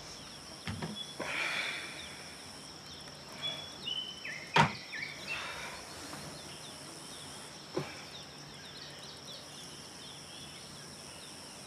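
Quiet rural ambience: a steady high hum with scattered short chirps and a few soft swells, and a single sharp click about four and a half seconds in.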